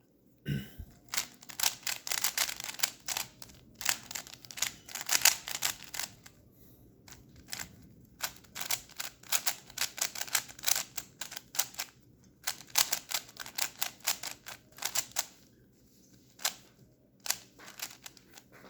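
Plastic 3x3 magic cube, a budget Joyin, being turned quickly by hand, its layers clicking in rapid runs with short pauses between.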